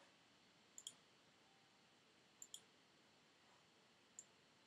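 Faint computer mouse clicks: a quick double-click about a second in, another double-click about halfway through, and a single click near the end.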